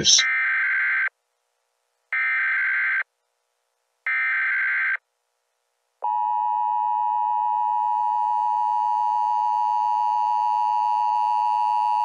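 Emergency Alert System broadcast signals: three harsh digital data bursts of about a second each, a second apart, then about six seconds in a loud, steady EAS attention tone starts and holds.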